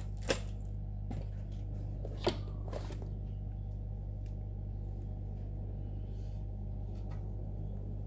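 Small steel mounting brackets clinking as they are dropped into a cardboard box, a sharp click just after the start and another about two seconds later, with a few lighter knocks as the box is handled. A steady low hum runs underneath.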